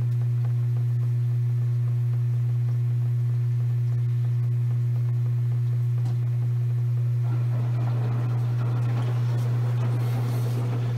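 Maytag washing machine running mid-cycle with a steady low hum, joined about seven seconds in by a rougher, rustling mechanical noise.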